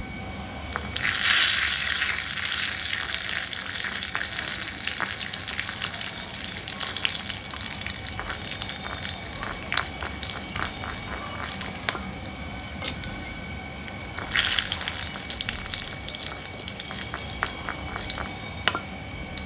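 Tempering of mustard seeds and urad dal sizzling in hot oil in a clay pot. A loud burst of sizzling starts about a second in and settles to a steady sizzle with light crackles while a spoon stirs, then a second burst of sizzling comes about fourteen seconds in.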